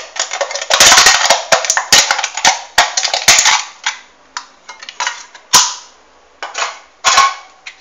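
Thin aluminium soda can crackling and clicking as fingers press along a scored line and the can splits into two halves. A dense run of sharp crackles for the first few seconds, then a few single clicks.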